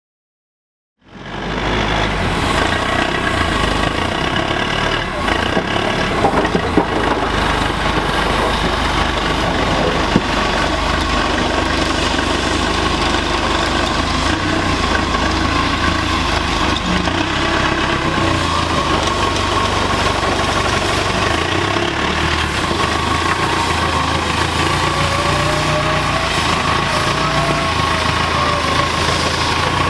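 The diesel engine of a JCB telescopic handler running as the machine manoeuvres and lifts a bucket of coal, starting about a second in, with a steady high whine over it.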